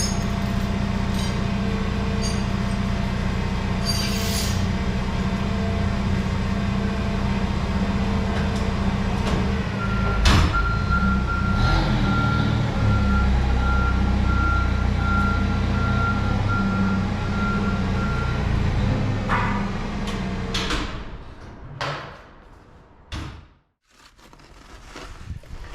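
A truck engine running steadily, with a high beeping tone for about eight seconds in the middle. The engine sound drops away suddenly near the end.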